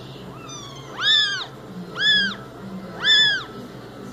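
Young kittens meowing: three loud, high-pitched meows about a second apart, each rising and falling in pitch, with fainter short mews between them. The repeated calls are taken as complaining.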